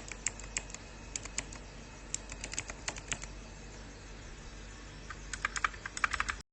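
Keys of a mechanical keyboard with Cherry MX-style switches being typed on, irregular clusters of sharp clicks that come fastest near the end. The sound cuts off suddenly.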